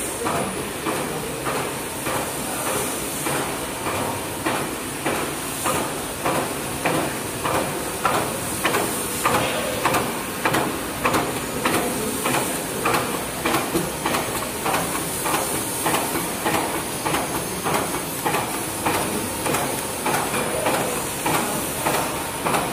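High-speed alcohol swab and wet wipe packing machine running: a regular mechanical clatter of a little over two strokes a second over a constant hiss.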